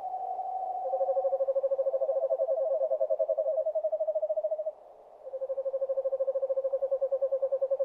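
Owl calls: a held whistled note, then rapid, even trills on a steady pitch, two overlapping at first. After a short pause another trill starts.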